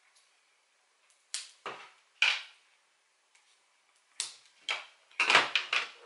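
Scissors cutting adhesive magnet tape: a series of short, sharp snips, with a quick cluster of them near the end.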